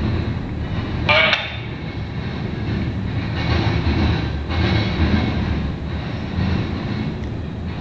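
Freight cars of a Norfolk Southern mixed freight train rolling past, a steady rumble of steel wheels on rail. A brief louder high-pitched sound comes about a second in.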